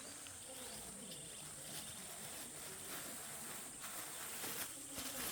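Steady high-pitched chirring of insects, with a few faint clicks near the end.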